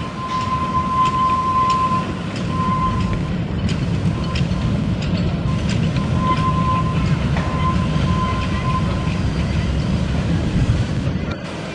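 1907 Fowler 0-6-2T sugar-cane steam locomotive and its train of open passenger cars running past: a steady low rumble with repeated clicks from the wheels, and a thin high squeal that comes and goes during the first nine seconds.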